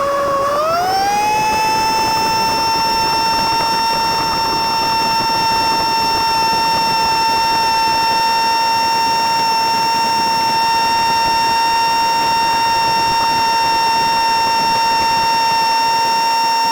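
Small boat motor running at speed with a high, steady whine; the pitch climbs over the first couple of seconds as it speeds up, then holds level.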